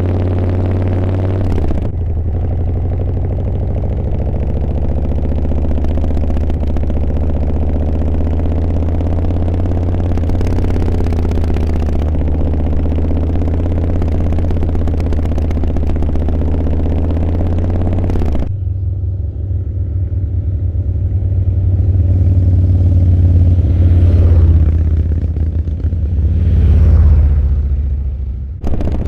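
Harley-Davidson V-twin motorcycle engine running under way, a deep steady rumble, with the engine note opening up and easing off twice near the end.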